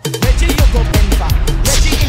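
Soca dance music in a DJ mix: the music cuts out for an instant, then a new track comes in a moment later with heavy bass and a steady drum beat. A hissy swell rises near the end.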